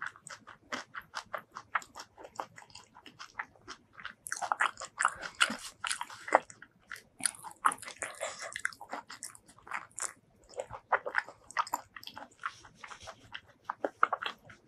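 Close-miked eating of rice mixed with spicy tomato fish paste curry and vegetables: steady chewing and crunching with many short mouth clicks. The crunching is densest twice, about four seconds in and again about eight seconds in.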